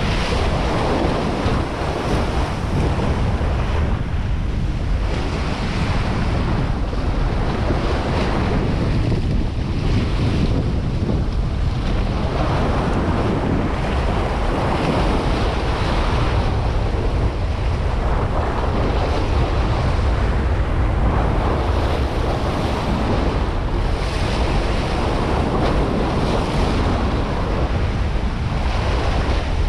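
Wind rumbling steadily on the microphone over surf washing against shoreline rocks, the wash rising and falling every few seconds.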